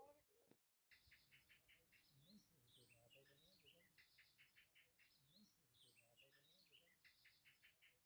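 Near silence, with a very faint chirping pattern that repeats about every two and a half seconds.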